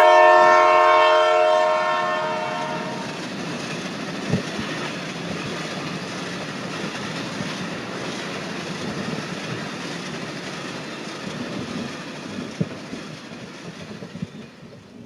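Train horn sounding a loud chord that stops about three seconds in, followed by the steady noise of a train going by, slowly fading away.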